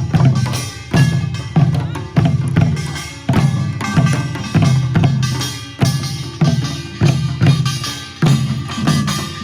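Korean pungmul percussion ensemble playing a procession rhythm, with a strong drum stroke about every two-thirds of a second and a steady ringing tone over it.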